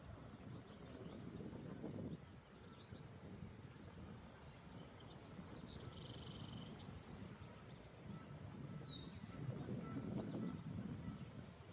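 Wind buffeting the microphone in low gusts, with a few short bird chirps around the middle and one falling chirp a little later.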